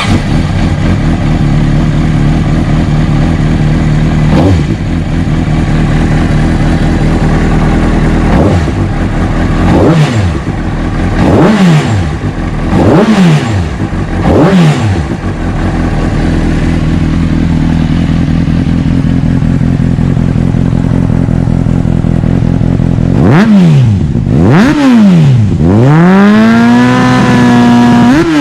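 Honda CBR600RR inline-four running through a Leo Vince SBK aftermarket muffler: idling, with a string of quick throttle blips. Near the end come a few more blips and a rev held high for about two seconds.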